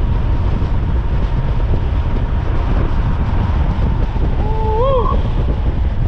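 Heavy wind buffeting on the microphone from riding a 72-volt electric bike at high speed: a loud, steady, rushing low rumble.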